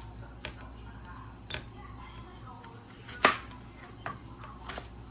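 Kitchen knife chopping vegetables on a cutting board: about five irregular sharp strikes, the loudest a little after the middle.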